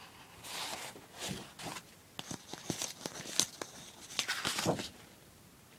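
Sheets of scrapbook paper and cardstock die cuts rustling and sliding against each other as they are handled and turned over, with short crinkles and light taps, stopping about five seconds in.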